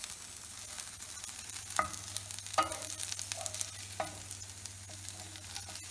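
Okra frying in oil in a nonstick pan, a steady light sizzle and crackle, while a wooden spoon stirs and scoops it, with scattered clicks and scrapes of the spoon against the pan.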